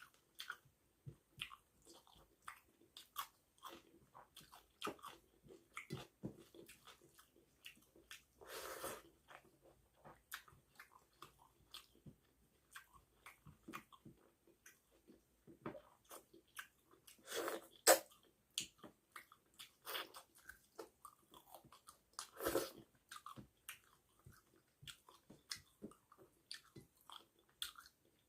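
Close-up eating sounds of a person chewing rice and fish curry: many small wet mouth smacks and clicks, with three louder, longer crunching or slurping noises about a third, two thirds and four fifths of the way through.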